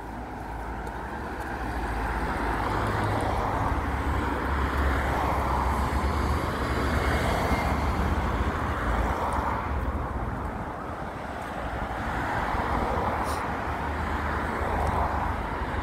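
Road traffic on the street beside the promenade: a steady low rumble of cars, swelling as vehicles pass.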